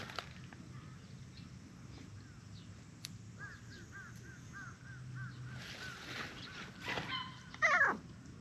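Birds calling: a quick run of small chirps, about three a second, then a louder short call sweeping down in pitch near the end.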